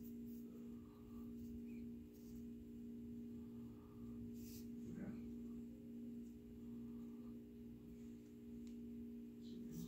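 Steady low hum of a few tones, with faint scattered rustles and small ticks of cedar bark strips being pulled and wrapped around a drumstick.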